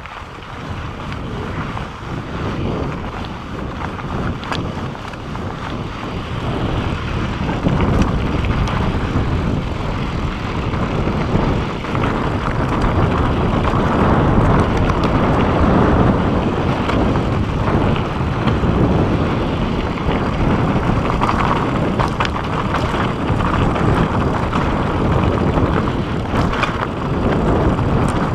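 Wind rushing over the microphone and mountain-bike tyres rumbling over rocky dirt singletrack on a fast descent, with scattered clicks and rattles from the bike. The noise builds over the first several seconds as speed picks up, then holds loud.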